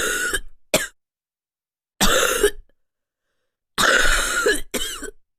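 A person coughing a wet, productive cough, the kind that brings up phlegm: a series of coughs about two seconds apart, some followed closely by a shorter second cough.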